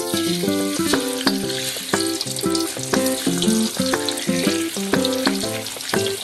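Food sizzling as it fries in hot oil in a pan, with light plucked-string background music playing over it.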